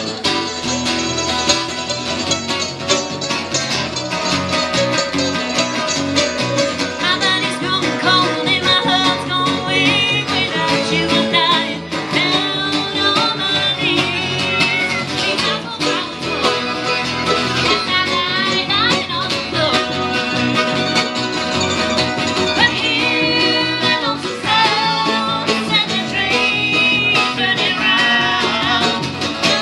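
Live old-time string band: acoustic guitars and a mandolin strumming and picking, with a woman singing and a harmonica joining in with a wavering melody.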